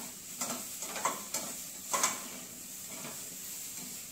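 Perforated stainless steel spoon scraping and clinking against a stainless steel pan as sautéed paneer and bell peppers are stirred, over the sizzle of the frying. The strokes stop about two seconds in, leaving the sizzle alone.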